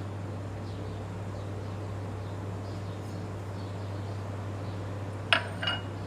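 Two sharp clinks of kitchenware knocked together near the end, the first one louder, over a steady low hum.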